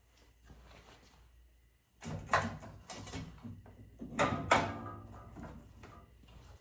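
Faint room noise, then two loud clunks about two and four seconds in, each followed by a scraping, creaking tail, the second with a pitched metallic creak that fades out.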